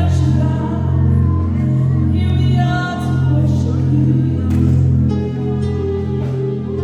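Worship band music: sustained keyboard chords changing about once a second, with a voice singing over them.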